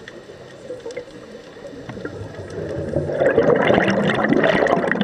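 Underwater scuba bubbles: a diver's exhaled regulator bubbles rushing and crackling past the camera, swelling loud about three seconds in.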